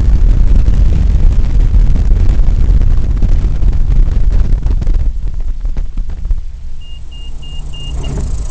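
Aviat Husky A-1C light aircraft on its ground roll after landing on a rough grass and dirt strip, heard from inside the cabin: a loud, low rumble of engine, propeller and wheels over the rough ground that eases about five seconds in as the plane slows, leaving a steadier engine note. Near the end a quick run of short, high beeps sounds.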